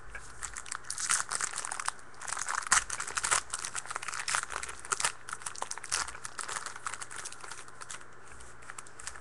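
Wrapper of a trading card pack being torn open and crinkled by hand, crackling irregularly and dying down about two-thirds of the way through as the cards come out.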